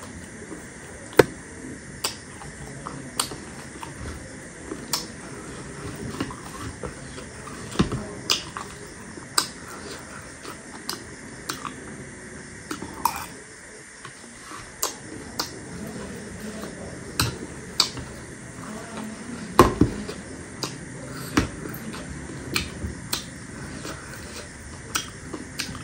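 Metal spoon clinking and scraping in a bowl of chatpate, a spicy puffed-rice snack, along with close-up chewing of the crunchy mix: irregular sharp clicks every second or so, one louder knock a little past the middle.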